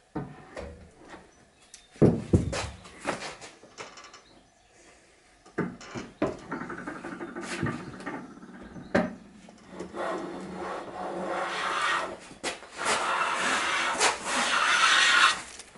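Metal bench hand plane pushed along the edge of a timber board in long shaving strokes, jointing the edge straight for gluing boards together; the last strokes are the longest and loudest. A few knocks come first, the loudest about two seconds in.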